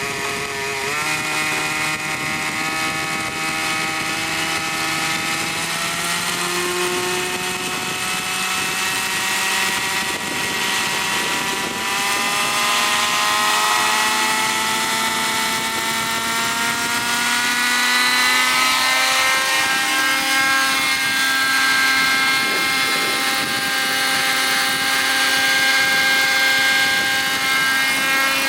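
Hirobo Shuttle model helicopter's OS 37 two-stroke glow engine running at high revs. Its note climbs gradually and wavers slightly as the throttle and rotor load change.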